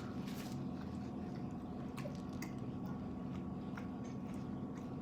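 A person chewing food close to the microphone, with scattered wet clicks and smacks of the mouth, over a steady low hum.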